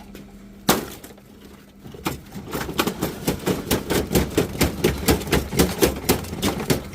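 A single sharp knock, then about two seconds in a fast run of hammer blows, about four a second, growing louder, as something is beaten apart for scrap without the right cutters.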